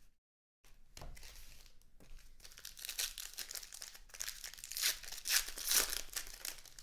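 Sports card pack wrappers being torn open and crinkled by hand, a dense crackling that grows louder toward the end. It breaks off completely for a moment near the start.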